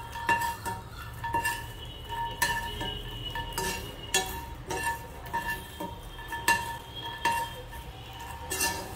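A steel spoon stirring roasted lotus seeds (makhana) in a cast-iron skillet to coat them in spice mix. Repeated clinks and scrapes of metal on the pan, each clink ringing briefly, come every half second to a second.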